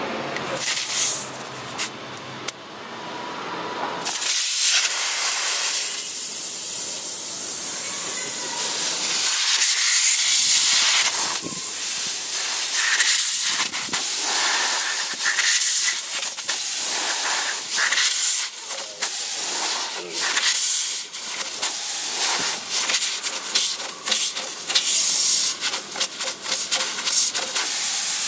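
Air hissing steadily out of a punctured motorcycle tyre through the hole just reamed open with a rasp tool, setting in about four seconds in.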